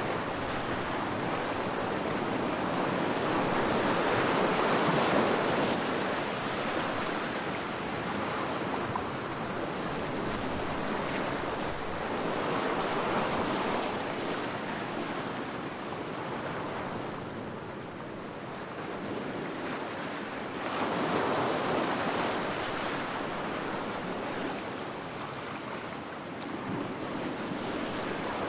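Ocean surf on a beach: waves breaking and washing in, rising and falling in slow surges about every eight seconds.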